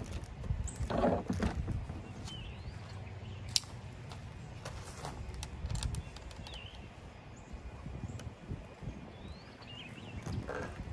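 Outdoor ambience: a steady low rumble with a few short bird chirps, and scattered clicks and rustles of the chainsaw's packaging being handled, loudest about a second in.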